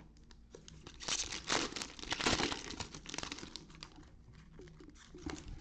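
Trading card pack wrappers crinkling and tearing as card packs are opened, in a run of short bursts in the first half, then softer rustling.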